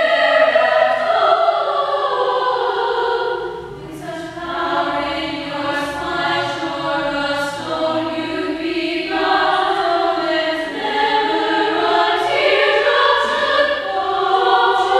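A choir singing held chords in a church, moving from chord to chord, with a short drop in loudness between phrases about four seconds in.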